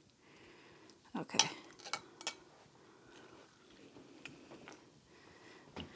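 Light, scattered clinks and taps of a utensil in a bowl of fruit punch with ice, a few sharper ones between one and two and a half seconds in.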